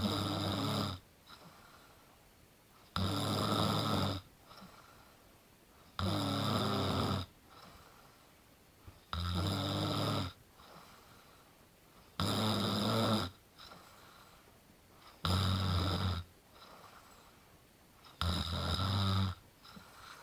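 Snoring in a steady rhythm: seven rough, rumbling snores about a second long, one every three seconds or so, with faint breathing between them.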